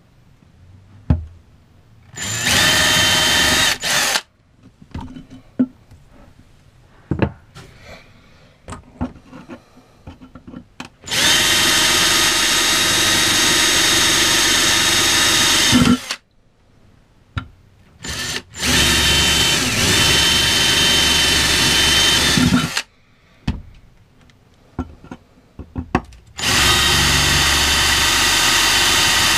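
Ryobi cordless drill running in four separate bursts, a steady whine each time, drilling mounting holes for the water pump base, with small clicks and knocks of handling between the runs.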